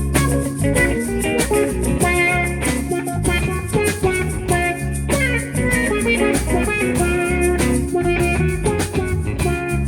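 Live band playing an instrumental passage: guitar notes over bass and a steady drum beat.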